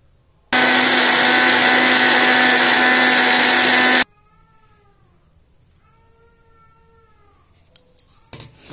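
Electric mixer grinder running at full speed for about three and a half seconds, grinding coriander leaves, garlic and chilli to a paste, then stopping abruptly. A cat then meows a few times, and a few sharp clicks and a knock follow near the end as the jar is handled.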